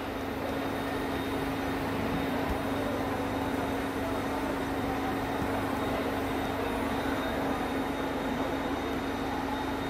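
Steady mechanical hum of running machinery: a constant low tone over an even whirring noise.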